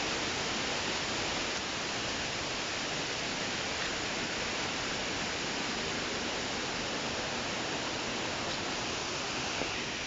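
Steady rushing of falling water from a waterfall, an even hiss with no breaks or changes.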